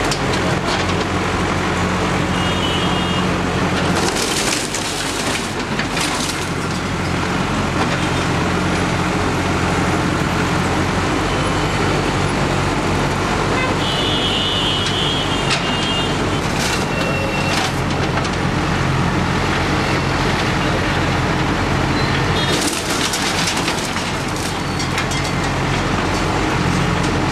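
JCB backhoe loader's diesel engine running steadily as its bucket pulls down a roadside shop structure. Crashes of breaking metal and debris come about four to six seconds in and again near the end, with a few short high squeals.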